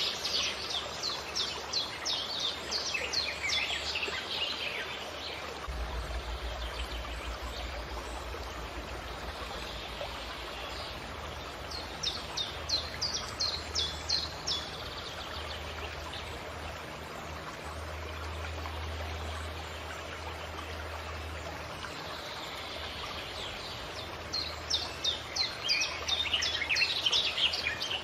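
A songbird sings three bursts of quick repeated high notes, near the start, in the middle and near the end, over the steady rush of running water from a stream.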